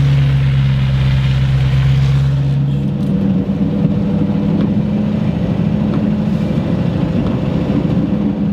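Truck engine running steadily, then picking up speed about three seconds in and holding at the higher speed.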